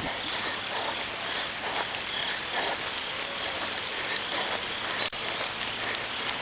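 Steady rain hissing on a wet road.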